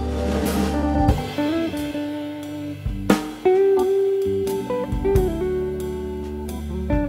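Instrumental background music: guitar playing held and sliding notes over a drum kit.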